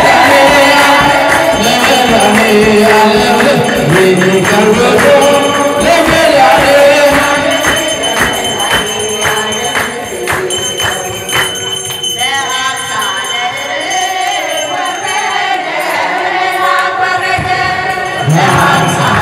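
Voices singing an Ethiopian Orthodox hymn together, with handclapping in a steady rhythm.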